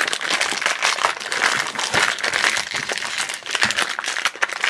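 Crinkly blue blind-bag wrapper crinkling as hands peel and work it open: a dense, continuous crackle of many small crinkles.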